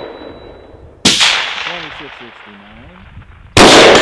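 Two rifle shots from a Daniel Defense DD5v2 semi-automatic rifle firing 7.62x51 M80 145-grain full metal jacket rounds, about two and a half seconds apart, each a sharp crack that rings away over a second or more, as the echo of a previous shot dies away at the start.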